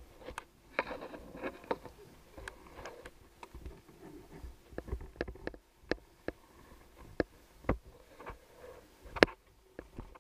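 Sharp, irregular clicks and knocks close to a head-mounted camera, from a snowboarder's gear being handled while he gets ready on the snow. The loudest click comes near the end.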